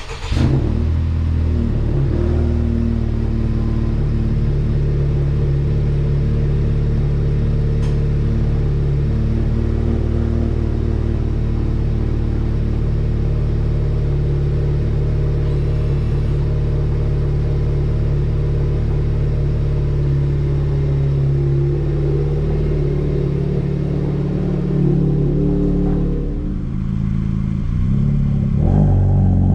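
Turbocharged 2.0-litre four-cylinder engine of a Honda Civic Type R FK8, exhausting through a system with the muffler and resonator deleted. It starts about half a second in and settles into a steady idle. Near the end it begins to rev, rising in pitch.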